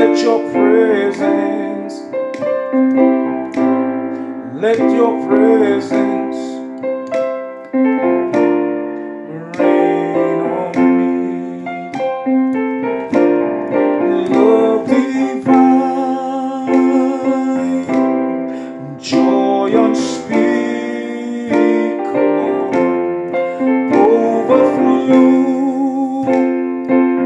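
Keyboard music: a piano-toned keyboard playing chords and melody notes in an instrumental passage of a gospel worship song.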